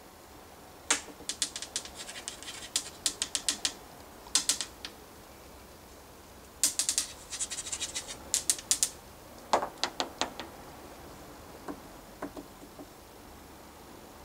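Cat lapping water at a kitchen tap: quick runs of wet clicks, several a second, in bursts separated by pauses.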